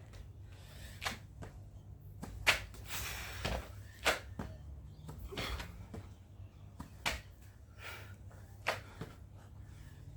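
Irregular knocks and clicks, like objects being handled and set down, over a steady low hum, with a short rustle about three seconds in.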